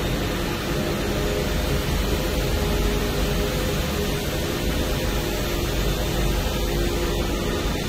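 Steady machine-room noise from a running SMT production line: an even rushing noise from fans and ventilation, with a low steady hum underneath.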